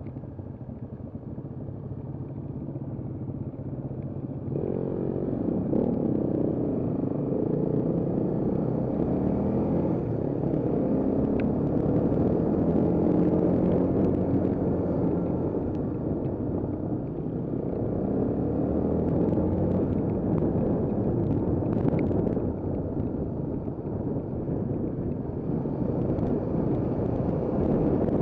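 Trail motorcycle engine ticking over at idle, then pulling away about four and a half seconds in and running on at varying revs as the bike rides along.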